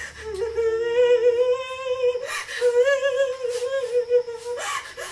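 A woman crying out in long, wavering wails: two held cries with a sharp sobbing breath between them about two seconds in.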